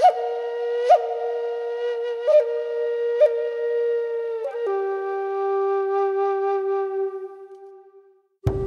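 Slow solo melody on a flute-like wind instrument. A long held note is decorated with short upward flicks about once a second, then steps down to a lower held note about four and a half seconds in, which fades away. A fuller music bed begins right at the end.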